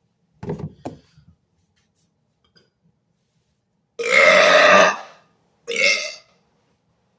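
A man's loud burp about a second long, about four seconds in, followed by a second, shorter burp. Near the start there are two brief sharp sounds.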